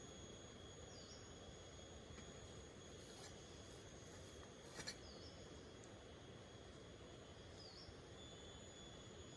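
Faint outdoor night ambience: insects trilling steadily at two high pitches over a soft low hiss, with a short high chirp repeating about every three seconds and a single light click near the middle.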